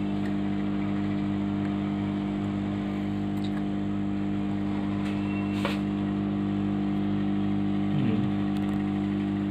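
Hot-air rework station blowing a steady hum as it heats a capacitor on a laptop motherboard to desolder it. The capacitor is suspected of being shorted.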